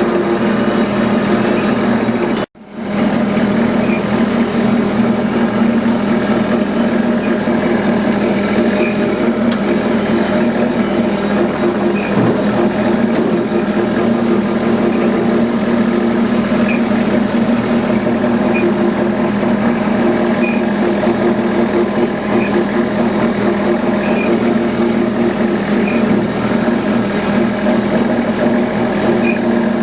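A steady mechanical hum like a small engine or motor running, with a low drone. It cuts out for a moment about two and a half seconds in, then carries on unchanged.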